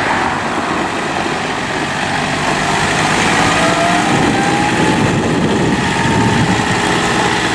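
John Deere 4052R compact tractor's diesel engine running steadily, with a faint whine that slowly rises and bends in pitch.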